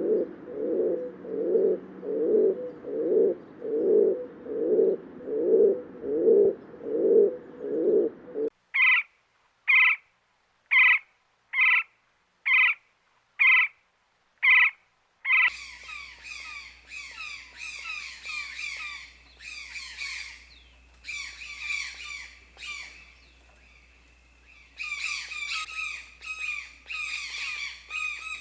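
Birds calling in three successive clips. First a low call repeated about three times every two seconds, then eight short, higher calls about a second apart, then a dense chorus of twittering chirps that pauses briefly near the end.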